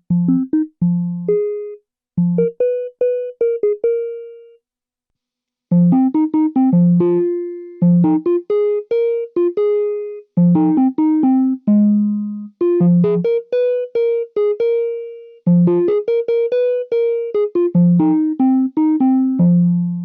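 Digital synthesizer played through a Strymon Iridium amp-and-cabinet pedal: phrases of short pitched notes, each with a sharp attack and a fading tail, with a brief pause about five seconds in before a busier passage.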